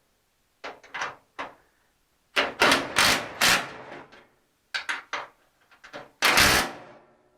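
A run of sharp knocks and clanks from tools and parts being handled while the hood hinges are worked on: a few light clicks, then a cluster of loud hits in the middle and one more loud hit near the end, each ringing out briefly.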